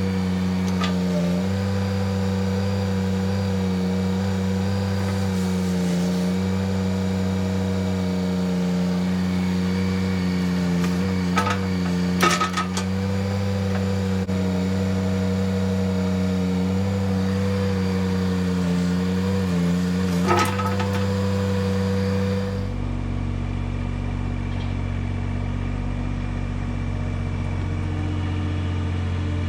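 IHI 20NX mini excavator's diesel engine running steadily, its pitch wavering slightly under hydraulic load, with a few sharp knocks of the bucket at work. About three-quarters of the way through the sound changes abruptly to a lower, steadier running.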